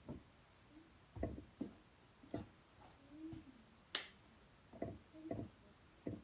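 A series of short, uneven knocks and taps, eight or so, with one sharper click about four seconds in.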